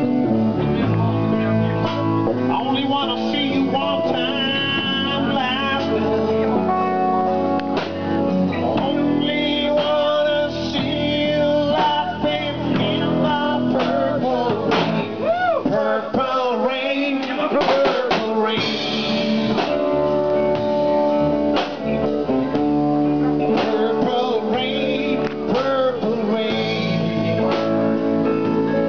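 Live band playing amplified music: guitar and drum kit with a singer at the microphone, the singing and guitar notes wavering with vibrato.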